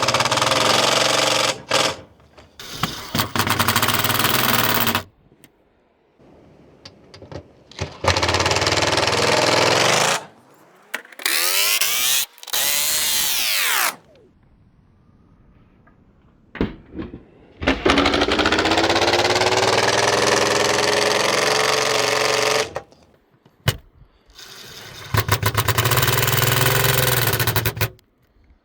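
Makita XGT 40-volt cordless impact driver in its Tech setting, hammering bolts tight on snow-bar clips in about six runs of a few seconds each. In the middle run the motor's pitch rises and then falls.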